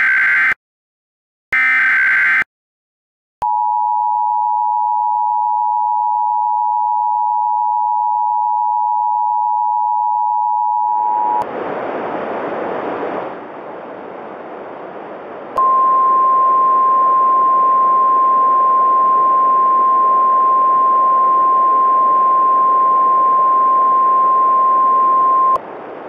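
Emergency Alert System tones: the last two short screeching bursts of the digital header code, then the two-tone EAS attention signal held for about eight seconds. A hiss of static follows, and then a single steady tone held for about ten seconds over the static.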